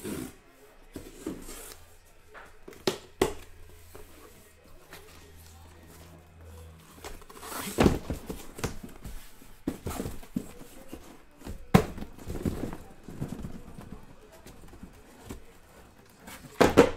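Cardboard hobby boxes of trading cards being handled and pulled out of an opened shipping case: a string of irregular knocks and thumps of cardboard, with a few sharper, louder thumps spread through.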